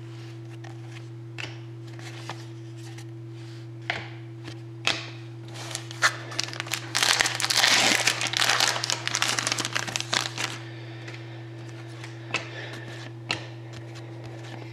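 Scissors cutting open a trading card pack, its wrapper crinkling densely for about four seconds in the middle, among scattered light clicks of cards being handled. A steady low hum runs underneath.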